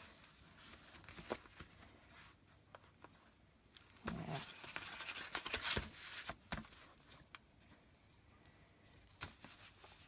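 Paper handling: sheets of paper and wallpaper sliding and rustling on a table, with scattered light taps. A louder stretch of rustling comes about midway.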